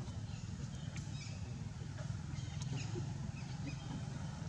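Outdoor ambience: a steady low rumble under scattered short, faint high-pitched chirps and a few small clicks.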